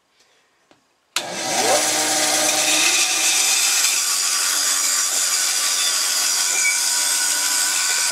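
Benchtop bandsaw switched on about a second in, its motor spinning up with a rising whine and then running steadily as its blade cuts an oak whiskey barrel stave.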